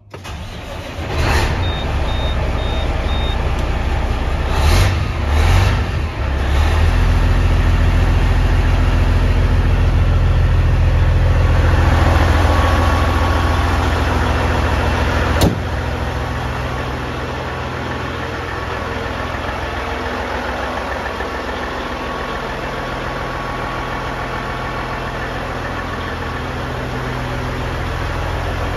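Cat 6NZ (3406E) diesel inline-six in a heavy truck starting up. It catches within the first second, runs unevenly for a few seconds, then runs steady and loud. A sharp click comes about halfway through, after which the engine sounds quieter and keeps idling. Four short high beeps sound a couple of seconds in.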